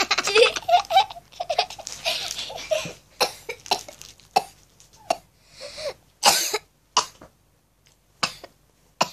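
Young girls laughing hard for the first few seconds, then a string of short, separate coughs and breathy bursts with brief silences between them.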